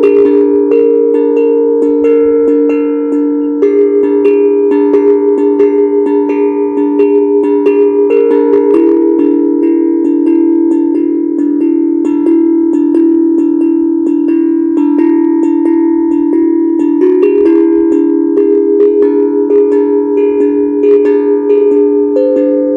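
HAPI steel tongue drum ("happy drum") played by hand: its tongues are struck several times a second, and each note rings on and overlaps the next, forming a sustained, shifting set of bell-like tones.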